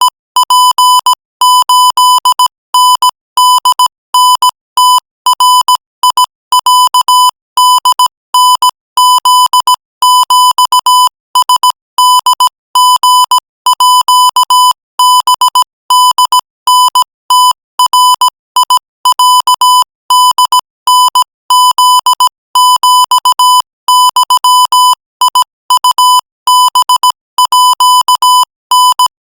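Morse code sent at 20 words per minute: a single-pitch beep keyed on and off in short dots and longer dashes, with brief gaps between letters and words.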